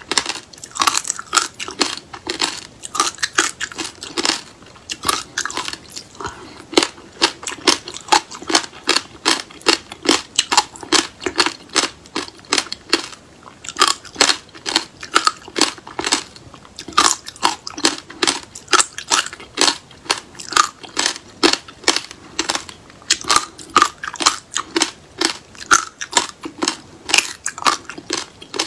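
Chewing and crunching a mouthful of frozen passion fruit pulp, the hard black seeds cracking between the teeth in rapid, dense crunches, with a couple of short lulls.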